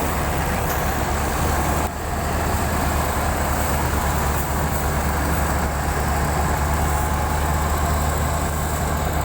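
Combine harvester engine running steadily under load, a loud, even low drone with mechanical clatter and hiss over it.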